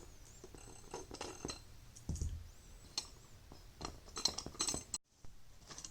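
Faint scattered clicks and light metallic taps of a tool and small parts of a seat belt retractor being handled during disassembly, with a soft thump about two seconds in and a quick run of clicks near the end.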